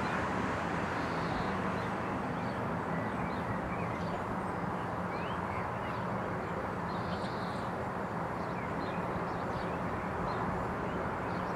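AgustaWestland AW139 twin-turbine helicopter heard far off as it flies away, a steady distant drone of rotor and turbines. Small birds chirp briefly, on and off, over it.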